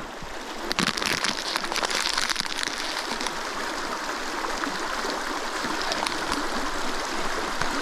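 Small mountain creek rushing and babbling over rocks in a steady wash of water noise, with a burst of sharper close-up crackle in the first three seconds.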